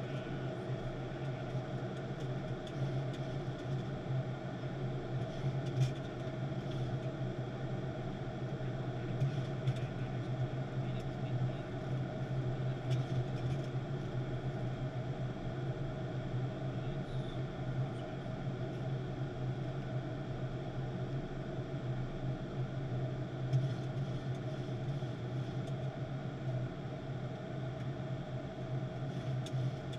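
Boeing 737-800 flight-deck noise in flight: a steady drone of air rushing past the cockpit and engine hum, with a low hum and a steadier mid tone, and a few faint clicks.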